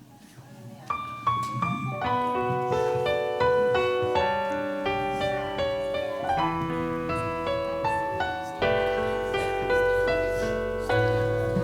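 Piano playing a slow song introduction. Single notes begin about a second in and build into full chords, with a low bass joining partway through and growing fuller near the end.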